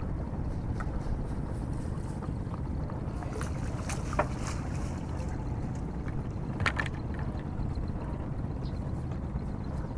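Steady low rumble aboard a wooden river fishing boat, with a few short knocks and clatters about one, four and seven seconds in.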